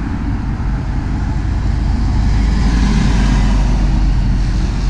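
Road traffic passing close by over a steady low rumble, one vehicle swelling louder and going past around the middle.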